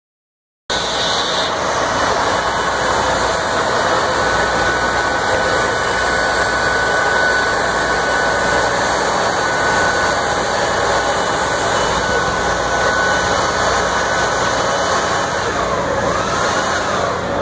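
Electric air blower running steadily, pumping air into an inflatable water walking ball. A faint steady whistle runs through much of it.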